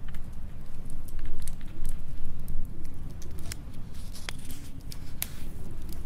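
Log fire crackling with scattered sharp pops, over a steady low noise of storm wind.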